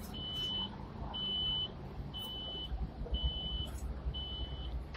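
Electronic warning beeper sounding a steady high-pitched beep five times, about one a second, each beep lasting about half a second, over the low rumble of traffic and the tram.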